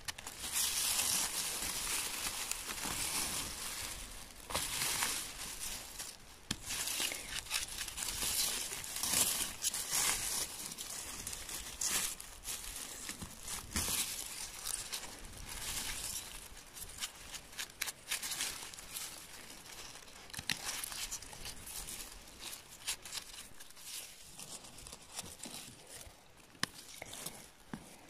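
Close, irregular rustling and crinkling of dry grass, moss and twigs with small snaps and clicks, from gloved hands picking and cleaning mushrooms on the forest floor. It is louder in the first half and softer toward the end.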